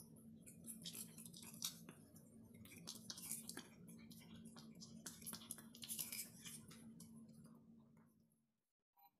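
Faint, scattered clicks and ticks from a small dog moving about on a hardwood floor, over a low steady hum that stops near the end.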